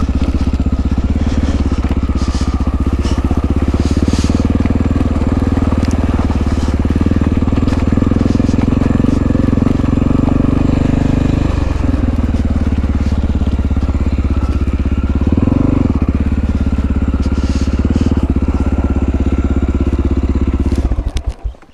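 1997 Honda XR650L's single-cylinder four-stroke engine running steadily as the dirt bike is ridden, with a short rise and fall in revs about three-quarters of the way through. The engine stops near the end.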